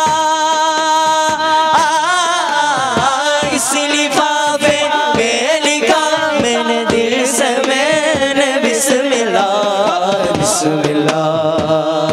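Men's voices singing an Urdu naat in unison, with long held and ornamented notes instead of clear words, over a few light percussive clicks.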